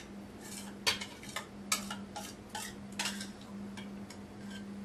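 A utensil scraping and clinking against a glass trifle dish as pudding is spread in, with a few sharp clinks about one, two and three seconds in.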